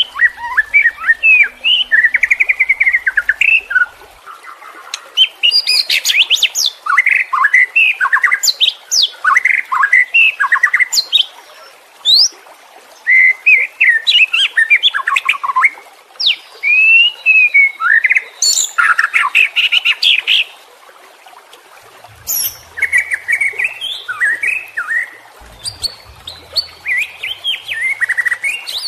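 White-rumped shama (murai batu) singing an agitated, full-tilt song. It is a loud run of varied whistled phrases, rapid sharp notes and high upward-sweeping calls, broken by a few short pauses.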